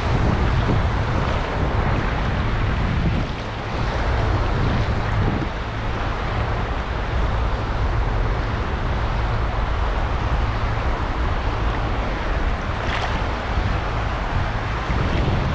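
Wind noise on the microphone over the steady wash of shallow surf.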